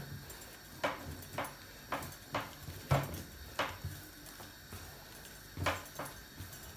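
Hands kneading and pressing a ball of oiled kessra dough on a worktop: soft, irregular thumps and pats, about eight in six seconds.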